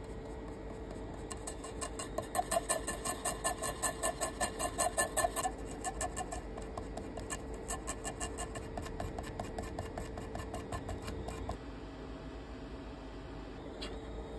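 Rapid back-and-forth scratching of a pen-shaped scraping tool on the face of a microSD card, about four strokes a second, loudest in the first few seconds, then lighter, stopping abruptly about 11 seconds in. The tool is grinding away the card's coating to expose the memory chip's copper contact pads.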